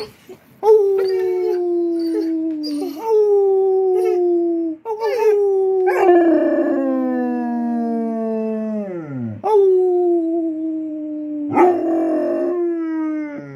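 Basset hound howling: a run of long, drawn-out howls with short breaks between them, each sliding down in pitch. One near the middle trails off in a steep downward glide.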